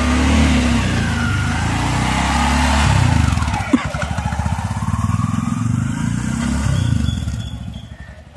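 Bajaj Maxima Cargo CNG three-wheeler's single-cylinder engine pulling away with a loaded bed while running on CNG. The engine pitch dips and climbs again, there is one sharp click just under four seconds in, and the engine fades near the end as the vehicle drives off.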